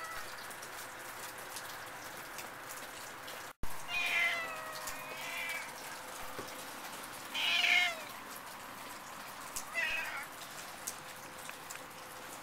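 Domestic cat meowing three times between about four and ten seconds in, the first call long and wavering in pitch.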